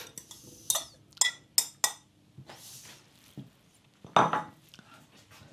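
A metal fork clinking and scraping against a ceramic bowl as cubes of corned beef are pushed out of it into a glass mixing bowl: several short sharp clinks about a second in, a soft swish, then a louder single knock near the end.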